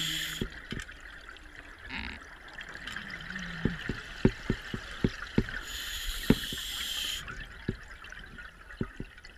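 Underwater scuba breathing through a regulator: a scattered string of bubble pops and gurgles from exhaled air, with the hiss of an inhale about six seconds in.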